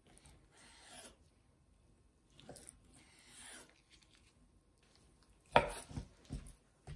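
Chef's knife slicing through raw salmon fillet on a wooden cutting board: several soft drawn cutting strokes, then a few louder sharp knocks on the board near the end as pieces are cut through and moved.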